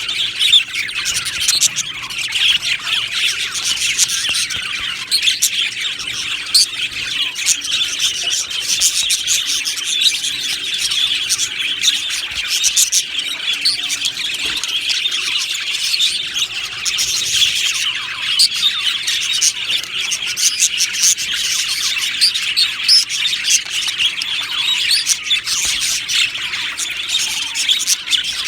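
A flock of budgerigars chattering and chirping together, a dense, unbroken warble of many overlapping calls with short sharp clicks.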